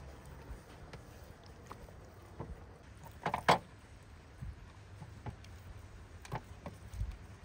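Scattered knocks and clatter of utensils and cookware being handled during food preparation, with one louder clatter about three and a half seconds in.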